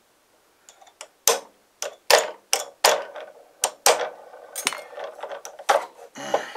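Small hammer striking a hardwood block held against a fitting on a model plane's nose gear, about eight sharp knocks at uneven spacing, driving the part down a little at a time.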